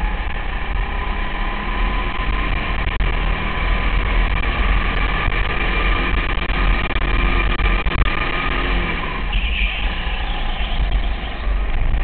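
200cc Honda single-cylinder kart engine running at racing speed, heard from the driver's helmet with a heavy low rumble of wind and vibration. The engine note changes briefly about nine seconds in, as on lifting off for a corner.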